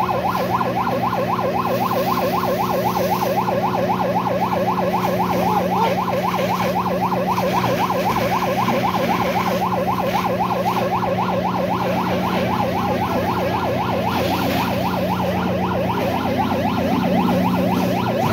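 Emergency vehicle siren in fast yelp mode, a rising-and-falling wail repeating several times a second, over a steady low drone.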